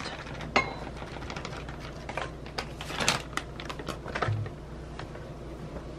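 Scattered light clicks, taps and rustles of hands handling a plastic food package and kitchen things.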